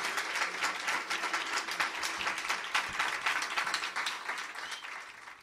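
Audience applause, a dense patter of many hands clapping, fading out near the end.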